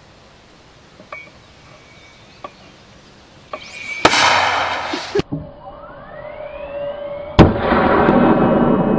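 82mm mortar firing weakly: a sharp bang about four seconds in with a second-long rush of noise, the round going only about four feet. Then a rising whistle and a second, louder bang near the end, followed by a long rush of noise.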